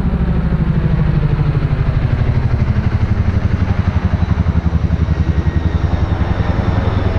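Tandem-rotor helicopter passing overhead, its rotor blades beating in a rapid, even chop over a deep drone.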